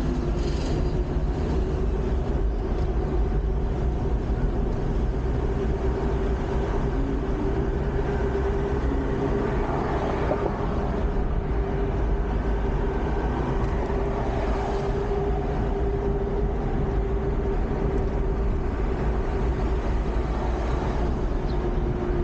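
A van driving on the road, heard from inside the cabin: a steady low rumble of engine and tyres with a constant hum.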